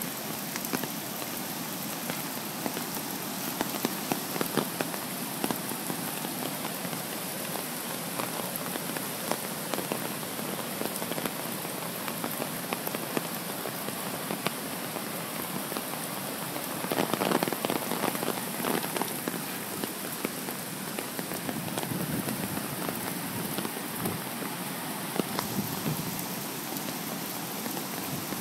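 Steady rain with many close drops ticking, over the continuous rush of a flooded stream in spate. The noise swells for a couple of seconds a little past halfway.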